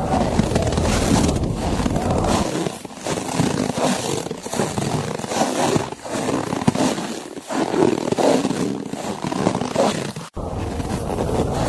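Footsteps crunching through snow in irregular strides, over blizzard wind. A deep wind rumble drops out for most of the stretch and returns after a brief break about ten seconds in.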